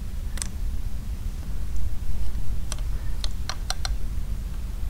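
Small sharp metal clicks of a snap ring and snap-ring pliers on the oil pump drive shaft of a Harley-Davidson Shovelhead gear case, as the ring is fitted into its groove. There is one click near the start, then a quick run of about five clicks around three seconds in, over a steady low hum.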